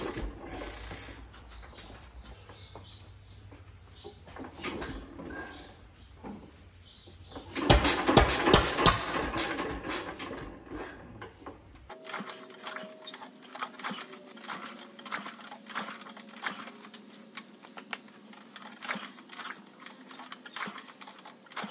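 A 1923 Fairbanks Morse 1½ hp hit-and-miss engine being turned over by hand at the flywheel without firing, making rapid mechanical clicking that is loudest for a few seconds about a third of the way in. It will not start because it is not picking up fuel from the tank: the check ball in the fuel pickup tube is jammed.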